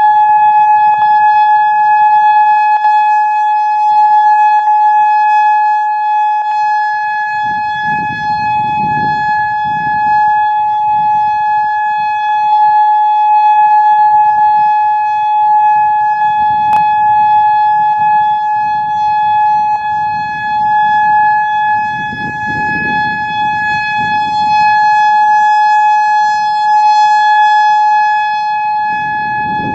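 Whelen WPS-3000 rotating tornado siren sounding its steady single-tone alert, the level swelling and easing slightly as it turns. Faint pops now and then come from its aging UV controls.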